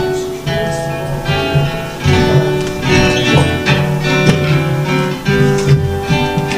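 Instrumental music led by a strummed acoustic guitar, playing steady held chords.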